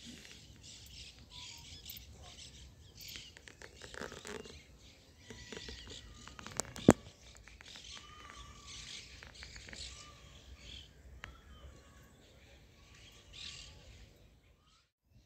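Quiet open-air hush of a large congregation in silent prayer, with faint bird chirps throughout and a single sharp click about seven seconds in.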